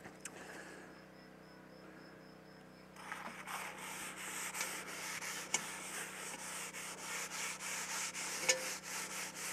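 Oiled paper towel rubbing the inside of a cast-iron Dutch oven, spreading a thin coat of oil for seasoning. After about three quiet seconds, fast back-and-forth scrubbing strokes start, about four a second, with two sharp clicks along the way.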